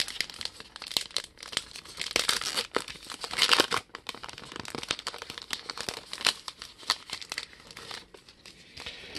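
Trading-card pack wrapper crinkling and tearing as it is ripped open and handled, in dense irregular crackles that are busiest a few seconds in and thin out near the end.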